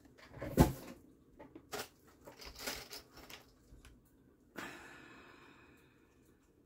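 Small old paper notebook being handled: a sharp knock about half a second in, then paper rustling as the pages are turned, and a rustling slide near the end as the notebook is laid open and flattened on the mat.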